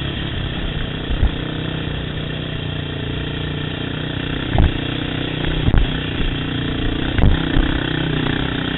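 Yamaha YFZ quad's engine running at a steady speed, with a few sharp knocks scattered through it.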